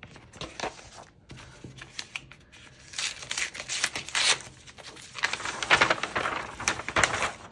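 Rustling and crinkling of plastic and paper merchandise packaging being handled, with small clicks, louder in two spells in the second half.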